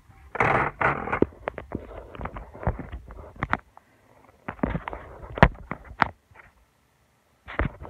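Handling noise from a phone being moved and set in place: rubbing, scuffs and sharp clicks against the microphone in irregular bursts, going nearly quiet for about a second near the end.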